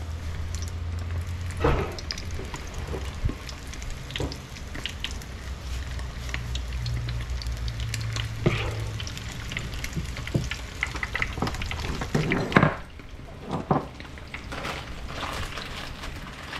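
Oyster fritter batter deep-frying in grease at about 365°F: a steady sizzle with constant crackling pops as spoonfuls of batter bubble in the oil. A few louder sharp knocks stand out, about two seconds in, near the middle and about two-thirds of the way through.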